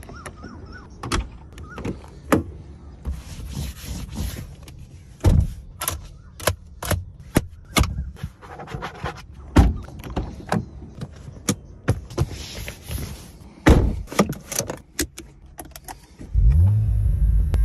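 A series of sharp clicks and thunks from an Audi car being handled. A loud, low, steady hum starts near the end.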